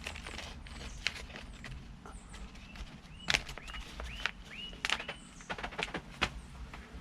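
Scattered sharp clicks and taps of plant cuttings and tools being handled, while a small bird gives a short repeated chirp four or five times around the middle.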